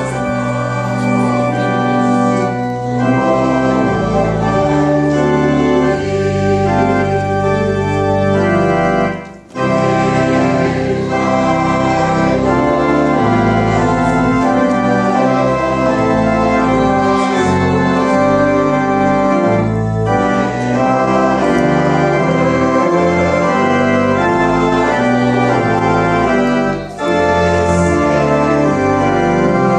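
Church organ playing sustained chords for the recessional, with two brief breaks between phrases, about nine seconds in and near the end.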